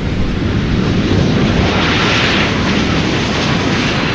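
Boeing 787-9 on landing approach with its Rolls-Royce Trent 1000 engines running, passing close. The loud jet roar and rumble build over the first second and stay loud, with a hissing whine strongest about two seconds in.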